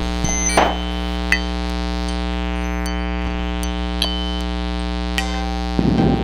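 Eurorack modular synthesizer music: a sustained drone chord of many steady tones over a low bass. A short noisy swell comes about half a second in, a few brief high pings follow, and a louder noisy swell rises near the end.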